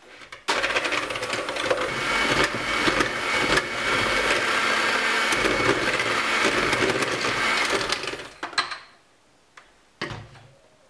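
Electric hand mixer with twin beaters running steadily, whipping eggs and sugar until frothy in a plastic bowl; it starts suddenly about half a second in and is switched off about eight seconds in. Two short knocks follow.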